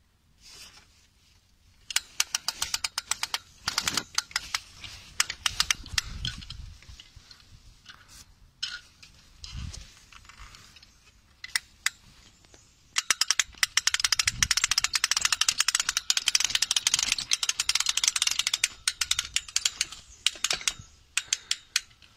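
Garden parasol's hand-crank opening mechanism being wound, clicking rapidly in runs: a short run about two seconds in and a long, dense run through the second half as the canopy opens, with a few dull knocks from handling in between.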